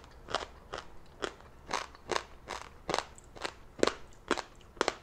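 Close-up chewing of a whole crisp, salted scorpion: a steady run of sharp, brittle crunches, about two a second, as the shell shatters between the teeth.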